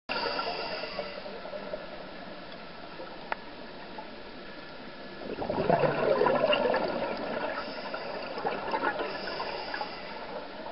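Scuba diver's exhaled regulator bubbles heard underwater: a steady hiss, then about five and a half seconds in a loud gurgling rush of bubbles for about two seconds, trailing off into smaller bubbling and crackling.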